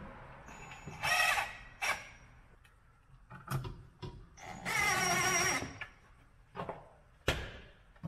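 Cordless drill driving screws through metal pipe clamps into a camper's underside. The motor whirs in two short runs, one about a second in and a longer one near the middle, followed by a few sharp knocks near the end.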